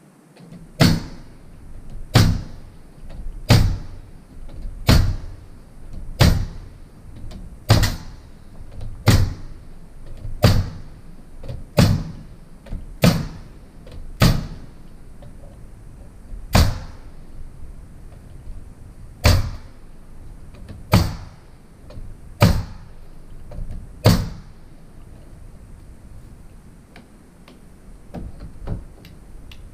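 Pneumatic nail gun firing nails through lap siding planks. About sixteen sharp shots ring out, at first roughly one every second and a half and then more spaced out.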